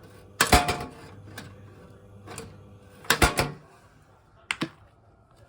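Sharp plastic-and-metal clacks and rattles from a Mitsubishi EX-25LH3 ventilation fan being handled or switched, in three short bursts, the second about three seconds in. A low steady hum underneath fades out just after the second burst.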